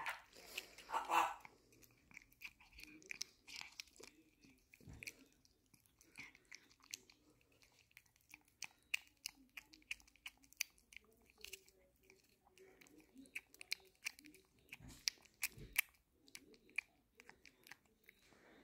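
Cat licking a Churu puree treat straight from its squeeze tube, up close: rapid, irregular little wet tongue clicks and lip smacks.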